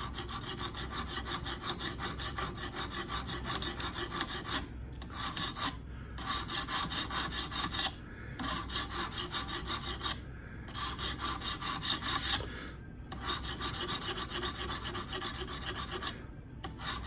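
Sharpening stone on a guided system rubbing back and forth along a Hinderer Spanto's blade in quick, short strokes, about four a second. The strokes come in runs broken by brief pauses, as the bevel is reprofiled and widened.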